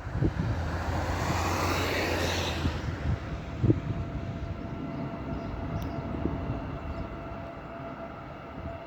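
Freight train hauled by an E494 electric locomotive arriving and rolling through, with a rush of noise that swells and fades over the first three seconds. A single sharp knock comes about four seconds in, then a steady rumble with a thin steady whine.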